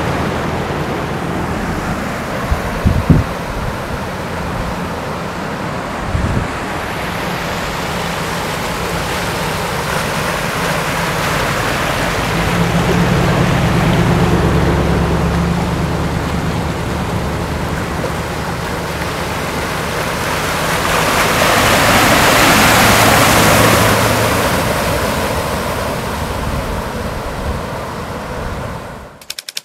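Floodwater rushing across a road, with wind on the microphone and the low hum of vehicles driving through the water. The rush swells and fades about three-quarters of the way through, and there are two short thumps about three and six seconds in.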